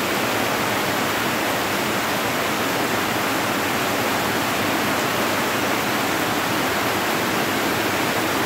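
Heavy rain pouring down: a steady, even hiss that stays level throughout.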